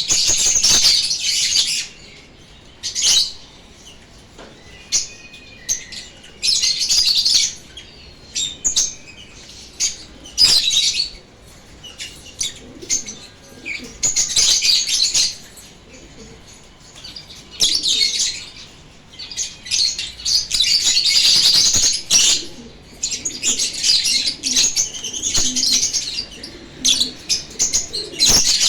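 Lovebirds chattering and chirping in shrill bursts of a second or two, with quieter gaps between them.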